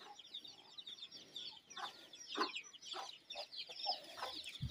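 Chickens clucking faintly: a few short, separate clucks among steady high chirping.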